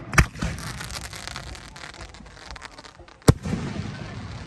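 Aerial fireworks bursting overhead: two loud booms about three seconds apart, each followed by a lingering echo and a fine crackle.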